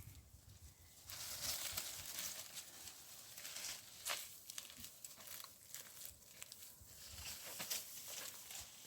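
Dry rustling and crackling of material being handled, starting about a second in, with scattered small sharp clicks.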